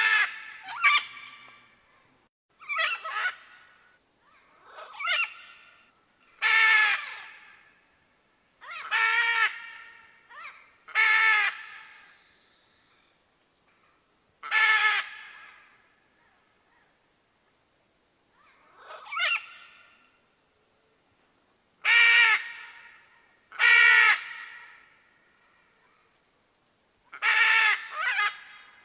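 Red macaw (arara-vermelha) squawking: about a dozen loud single calls, each under a second long, spaced one to four seconds apart and sometimes coming in pairs.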